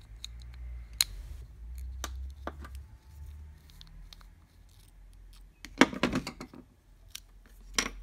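Small screwdriver prying at the plastic housing of a TV's remote-control sensor board: sharp plastic clicks and scrapes, scattered at first, then a dense cluster of louder snaps about six seconds in and another sharp snap near the end as the board is worked out of its housing.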